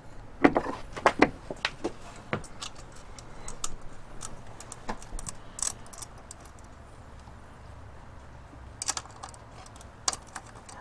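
Light metallic clicks and clinks of small nuts and washers being handled and threaded by hand onto the studs of a clutch master cylinder bracket. A cluster of clicks comes near the start, then scattered ones, and another cluster near the end.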